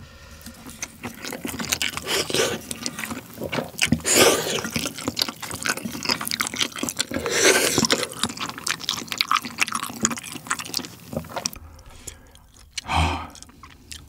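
Close-miked wet chewing and slurping of Jjapaghetti black-bean noodles with kimchi: many small wet smacking clicks, with louder slurps about four and seven and a half seconds in.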